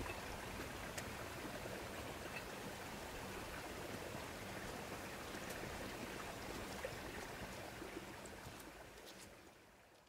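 Steady rushing outdoor noise with a few faint ticks, fading out near the end.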